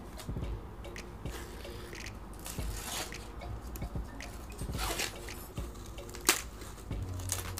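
Fresh sweet corn husk being peeled and torn off the ear by hand: papery crackling and rustling tears, with one sharp crack about six seconds in.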